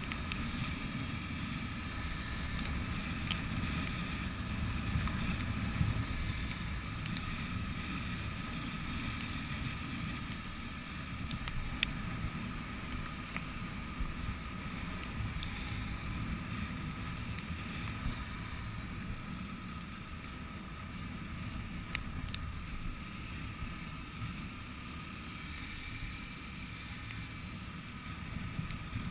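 Motorcycle riding at speed on a wet road: wind rushing over the camera microphone, with the engine and tyres running underneath.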